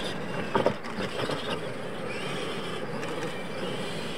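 Electric R/C monster trucks racing on a dirt track: motor and gear whine rising and falling with the throttle over tyre noise, with a couple of sharp knocks about half a second in.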